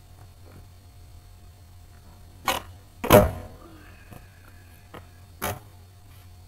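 Skateboard on pavement during a varial kickflip: a sharp clack as the tail pops, then a louder clack with a short rattle as the board lands about half a second later. One more clack comes about two seconds after that.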